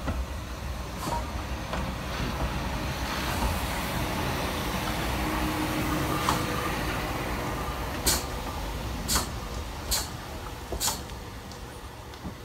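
Class 64 steam tank locomotive, a 2-6-2T, passing slowly at close range with a steady rumble and hiss of its running gear and steam. The sound swells as it goes by, then fades as it draws away, with four sharp clicks about a second apart near the end.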